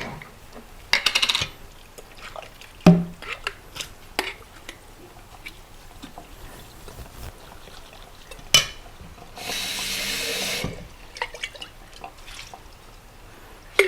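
Kitchen tap turned on and running for about a second, the water falling into the sink. Scattered knocks and clatter come before it, with one sharp knock about three seconds in and another shortly before the water starts.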